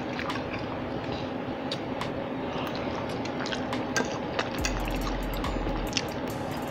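Eating at a table: metal forks clicking and scraping on plates, with close-up chewing of fried food and rice.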